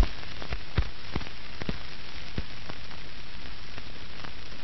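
Steady hiss and crackle of an old film soundtrack, with scattered clicks and pops, mostly in the first half.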